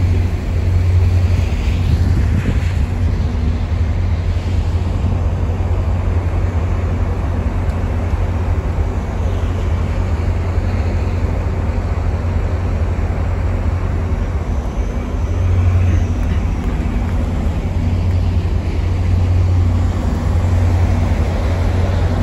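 FrontRunner diesel-electric commuter locomotives idling at a station platform: a steady low engine rumble and hum.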